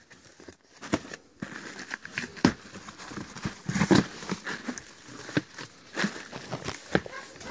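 Cardboard box being handled and its flaps pulled open, with irregular rustling and small knocks, then plastic air-cushion packing crinkling under a hand near the end.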